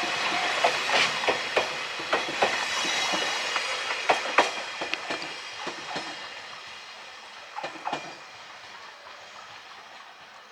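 Freight train of empty container flat wagons rolling past on jointed track, its wheels clicking over the rail joints, some clicks in quick pairs. The rumble fades steadily as the train draws away.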